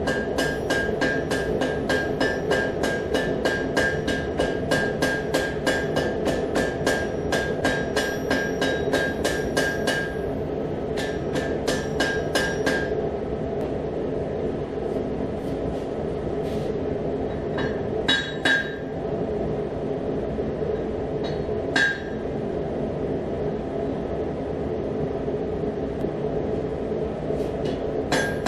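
Hand hammer striking a red-hot damascus barrel tube on an anvil, about three blows a second with the anvil ringing, then a few more blows before the hammering stops. A forge runs with a steady roar throughout, and the hammering starts again near the end.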